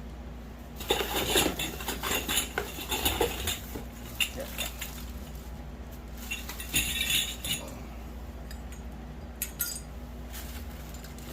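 Small hard parts clinking and packaging rustling as grow tent kit pieces are handled. This comes in two bouts, one about a second in and another around six seconds, with a few sharp clicks near the end.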